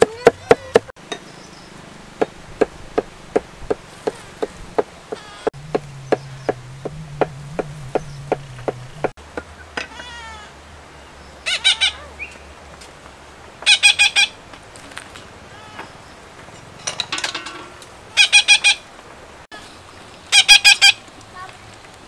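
Cleaver chopping lemongrass and chilies on a wooden board in quick, even strokes, about two or three a second, stopping about nine seconds in. Then caged birds squawk loudly in several short harsh bursts.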